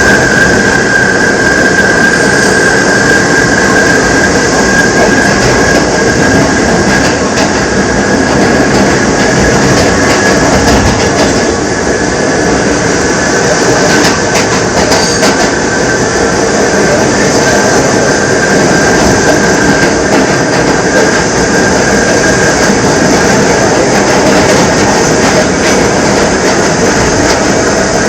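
R68 subway car running at speed, its traction motors and gearing giving a loud, steady high-pitched howl over the rumble of steel wheels on the rails, with a few faint rail clicks.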